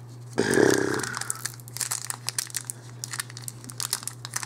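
Foil booster-pack wrapper crinkling and tearing as it is peeled open by hand, in many small crackles. A brief louder hum-like sound comes about half a second in.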